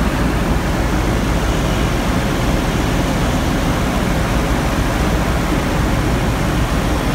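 Cockpit noise of a Mistral ultralight in flight: its four-stroke Renault Kwid car engine running steadily under a loud rush of air over the canopy.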